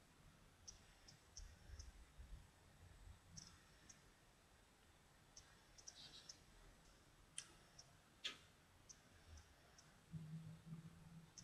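Near silence: quiet room tone with faint scattered clicks, two of them sharper a little past the middle.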